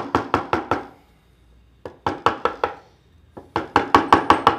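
Mallet striking a wood chisel in quick taps, about five a second, in three runs with short pauses, the second about two seconds in and the longest near the end. The chisel, bevel down, is cutting a small chamfer round the entrance of a drilled hole in wood.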